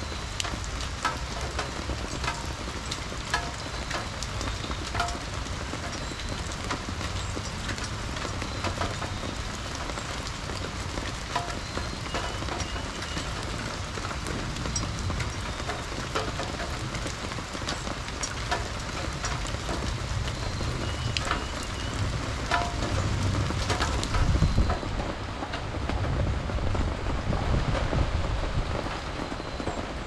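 Steady rain falling, with many individual drops pattering and dripping, and a few faint bird chirps. A low rumble swells in the second half and is loudest about two-thirds of the way through.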